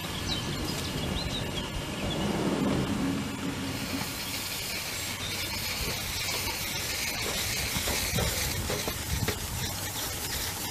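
2-inch-scale live-steam Shay locomotive blowing off steam with a steady hiss as it moves off; the hiss swells about four seconds in.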